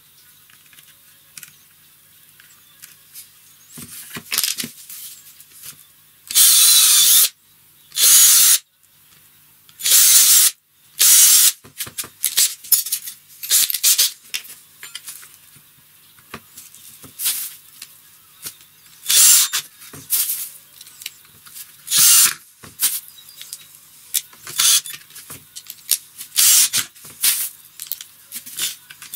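A drill boring small pilot holes into a wooden frame corner in four bursts of about a second each, then a run of shorter bursts as screws are driven in to fix a steel corner bracket.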